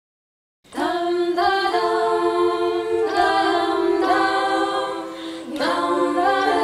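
A cappella choir singing sustained chords, mixed from separately recorded singers' tracks. It enters abruptly out of silence under a second in, and the chord dips briefly just after five seconds before the voices come back in on a new chord.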